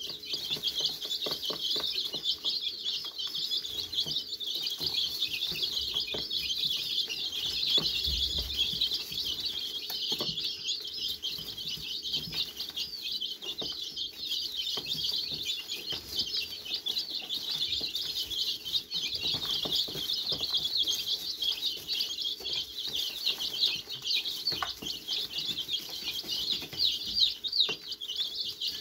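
A flock of two-week-old chicks peeping without pause, a dense chorus of high chirps, with light taps of beaks pecking grain mix in a plastic trough feeder.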